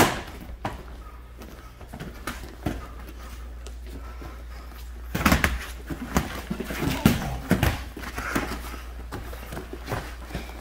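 Boxing gloves landing during sparring: one sharp, loud hit at the start, scattered knocks, then from about halfway a dense flurry of blows and scuffling as the two fighters clinch.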